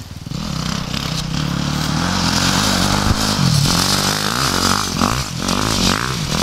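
Dirt bike engine revving hard as the bike rides toward and past, getting louder over the first couple of seconds, its pitch climbing and dropping several times with throttle and gear changes.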